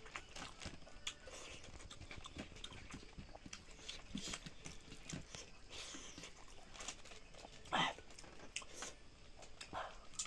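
Close-up eating sounds of someone chewing chicken tangdi kabab: repeated wet smacks, clicks and bites, with one louder short sound near the end.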